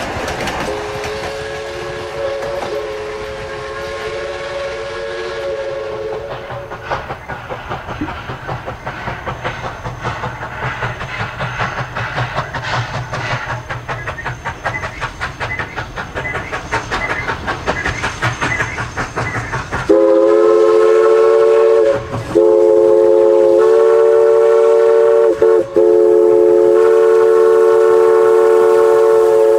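Narrow-gauge 2-8-2 Mikado steam locomotive No. 16 sounding its steam whistle in a chord-like tone for several seconds, then its exhaust chuffing in a fast, even rhythm with the clatter of the train's wheels. Near the end the whistle blows loud in a long, long, short, long pattern, the grade-crossing signal.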